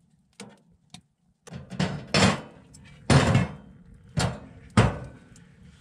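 A series of loud knocks and thumps, about five in three and a half seconds, each sharp at the start and dying away quickly, after two faint clicks early on.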